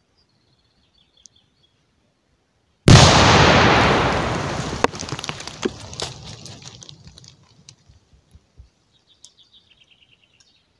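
A WWII 82 mm mortar shell buried under a pile of stones explodes. There is one sudden blast about three seconds in, then a rumble that fades away over several seconds, broken by sharp clicks as stones and debris come down.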